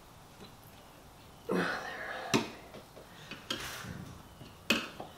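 Screwdriver and snap ring scraping and clicking against the metal frame of an oval stack window as the ring is forced into its seat, with two sharp clicks about two and a half and four and a half seconds in.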